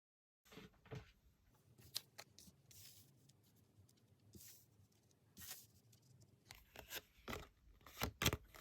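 Tarot cards being handled on a table: soft rustling broken by irregular sharp clicks and taps, the loudest pair near the end.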